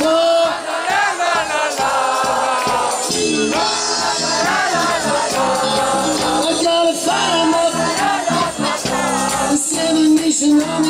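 Live band music with a man singing into a microphone over electronic backing; the low bass part comes in about three seconds in.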